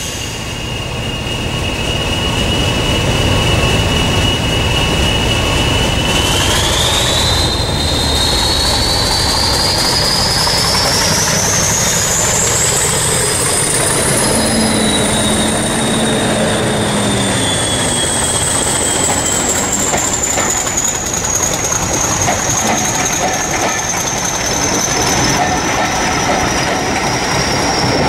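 English Electric Class 40 diesel locomotive D345 running past with its train. The loco's high turbocharger whistle holds steady, climbs sharply in pitch over several seconds as the loco draws near, then slowly falls away as it goes by, over the engine's rumble. The coaches then roll past with a clickety-clack of the wheels.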